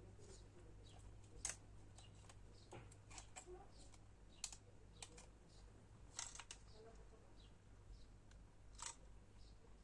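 Faint, scattered small clicks and ticks of a screwdriver and the goggles' plastic parts being handled as a screw is taken out, with a short cluster of clicks a little past the middle, over a low steady hum.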